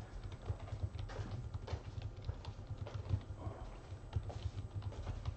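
Typing on a computer keyboard: a rapid, irregular run of key clicks with dull knocks.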